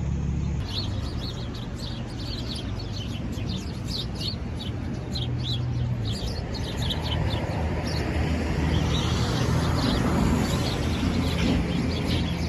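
A group of small birds chirping, many short high chirps overlapping in quick succession, over a steady low hum. In the second half a broad rushing noise swells up and then eases.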